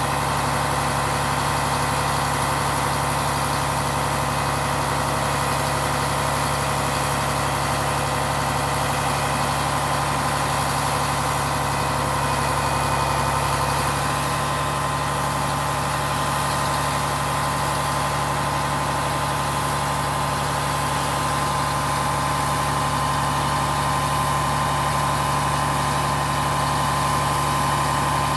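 Truck's diesel engine running steadily at idle, driving the hydraulic pump with a steady whine, as an Effer 210 knuckle-boom crane folds down onto the truck. The tone shifts slightly about halfway through.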